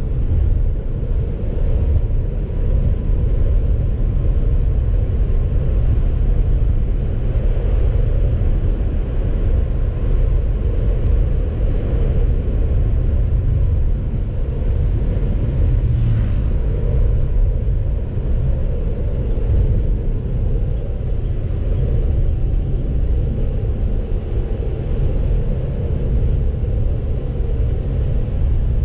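Steady rumble of a car being driven, with road and engine noise, and a brief click about halfway through.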